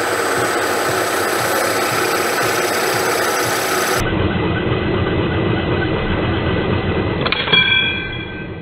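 Machine drill running while a sharp twist drill cuts into brass. Near the end the bit grabs the brass with a sudden bang and a metallic ring, pulling the part up the bit, the typical result of a sharp, positive-rake bit in brass.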